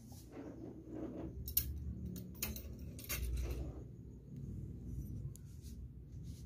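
Handling noise from a phone held close over a plate: a low, uneven rumble with a few sharp clicks and taps in the middle.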